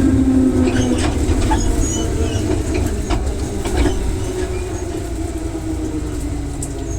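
Electric train's traction motor whine gliding slowly down in pitch as the train slows, over a low running rumble, with a few clicks of wheels over rail joints.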